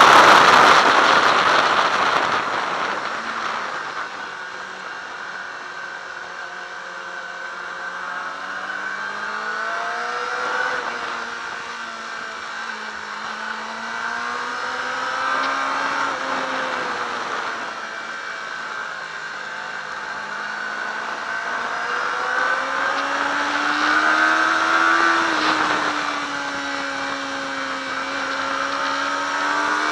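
Yamaha YZF-R6 inline-four engine heard from on board at speed, with wind rushing past: loud at high revs at the start, easing off after a few seconds to a softer note that rises and falls with the throttle, then climbing in pitch again near the end as it accelerates.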